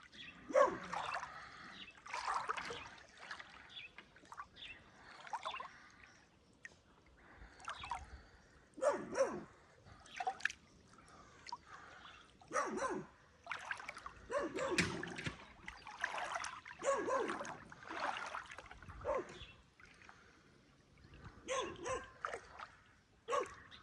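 Water splashing and dribbling in irregular short bursts.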